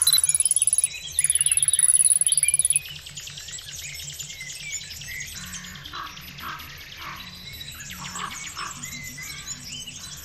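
Background music with bird chirping sounds throughout. A loud, high-pitched pulsing buzz sounds twice in the first three seconds.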